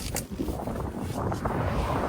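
Strong wind buffeting the microphone: a dense, steady low rumble with hiss, and a couple of brief clicks near the start.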